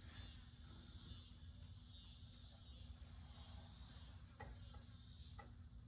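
Near silence: room tone with a faint steady hum and a faint high chirring, broken by two light clicks about a second apart near the end.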